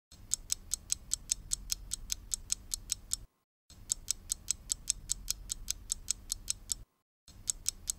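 Clock-ticking sound effect timing a quiz answer: rapid, even ticks, four or five a second, breaking off briefly twice as the loop restarts.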